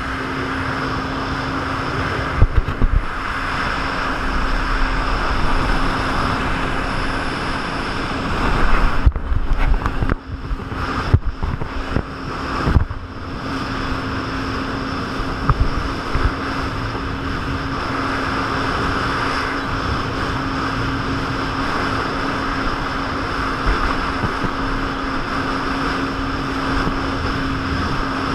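Jet ski engine running steadily at speed with wind and rushing water over the microphone. A cluster of sharp knocks and splashes comes in the middle as the hull hits bumps on the water.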